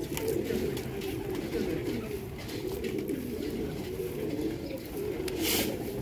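A flock of domestic pigeons cooing continuously, many overlapping low calls, with a brief burst of wing flapping near the end.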